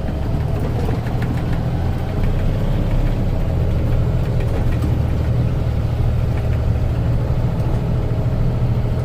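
Car engine idling, heard from inside the cabin: a steady low hum.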